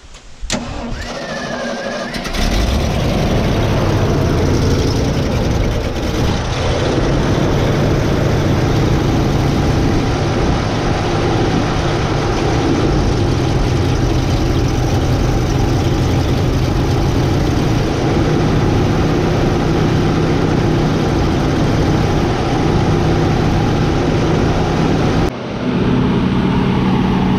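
Ford 390 big-block V8 starting about two seconds in and then running steadily, just after its fuel pump has been replaced, with fuel being poured into the carburetor from a bottle.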